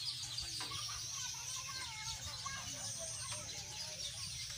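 A large flock of young broiler chickens calling together: a dense, unbroken chatter of high, short cheeps with a few lower clucks mixed in, over a steady low rumble.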